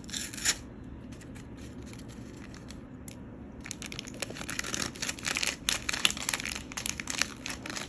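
Plastic wrapper crinkling as it is handled, with a short burst at the start and, from about halfway in, a dense run of quick crackles.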